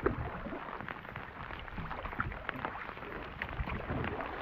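Rain falling on a river and an inflatable boat, a steady patter of many small drop ticks, with one sharp knock right at the start.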